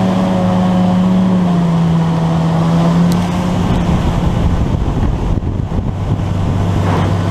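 Engine of a vehicle driving fast over snow-covered lake ice, running steadily with its pitch easing down a little after a second or two. From about three seconds in the engine tone fades under a rushing noise of wind and snow, and it comes back near the end.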